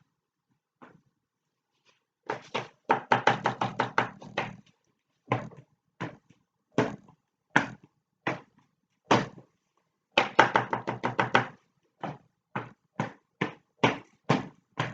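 Repeated knocks of a folded cardboard edge being chopped down onto paper on a table to print grass: quick runs of about five or six knocks a second, with single knocks spaced out between them.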